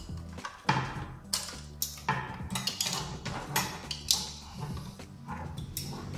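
Scattered plastic clicks and knocks of hands working inside an opened Epson L355 inkjet printer, as the power supply's connector is pulled off the main board.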